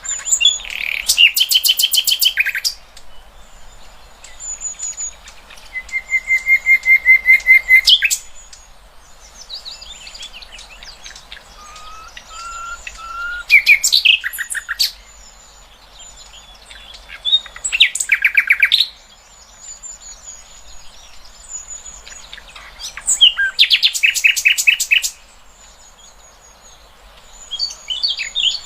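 Caged songbirds singing: loud bursts of rapid chattering trills every few seconds, with thin high twittering and short whistled notes between them. It is tutor song of the kind played to teach competition songbirds.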